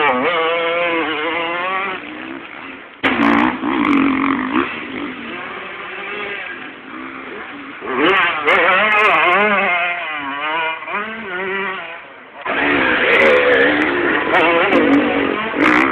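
125 cc motocross bike engines revving up and easing off as they ride past on a dirt track, the pitch climbing and falling with each throttle and gear change. The loud passes come near the start, from about three seconds, from about eight seconds and again from about twelve and a half seconds, with quieter gaps between.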